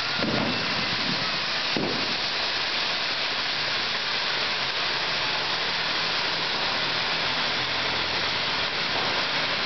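Firework burning with a steady loud hiss of spraying sparks, with a couple of faint pops in the first two seconds.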